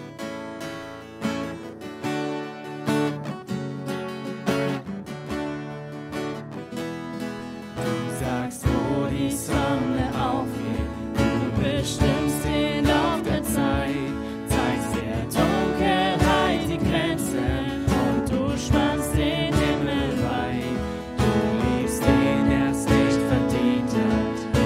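A worship song played live on a strummed acoustic guitar and a keyboard. About eight seconds in, the playing gets louder and fuller, and singing comes in.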